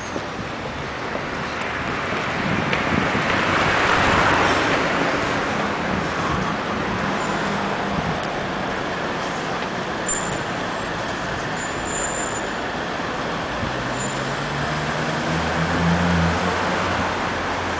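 City street traffic: a steady wash of passing cars and vans, loudest about four seconds in, with a vehicle engine's low hum building near the end.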